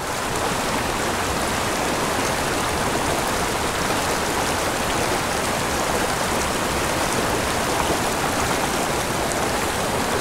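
Small mountain creek running steadily, its water spilling over a log-jam cascade into a shallow pool: an even, unbroken rush of water.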